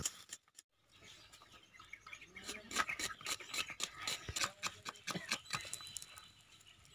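A kitchen knife slicing small red onions on a banana leaf: a run of irregular crisp cuts and taps that starts about two seconds in.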